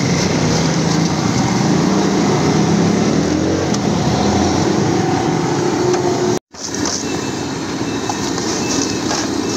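Steady, loud din of a busy street with traffic, with an engine-like hum rising and falling in the first few seconds. The sound cuts out completely for an instant about six and a half seconds in, then returns slightly quieter.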